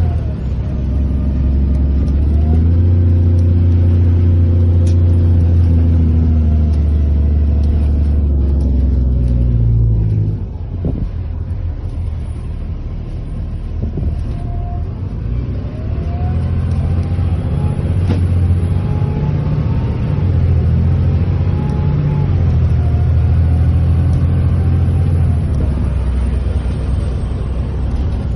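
Diesel engine of a Thomas Built HDX school bus running under load with a low, steady drone. It eases off about ten seconds in, then pulls again with slight rises and falls in pitch.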